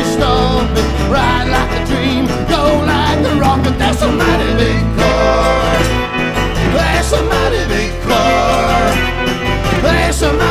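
Background music: a song with a singing voice and guitar.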